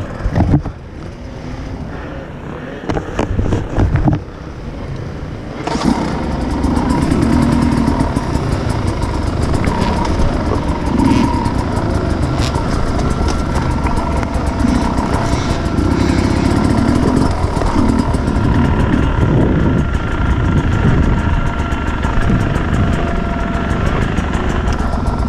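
Many enduro dirt bikes running and revving together. The engine noise is quieter with a few knocks at first, then becomes loud and dense all at once about six seconds in, and stays that way.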